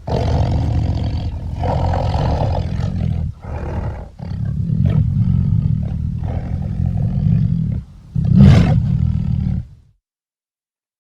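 Cartoon mongoose sound effect: a low, rough animal call in long stretches broken by short gaps, loudest in a burst near the end, then cut off abruptly.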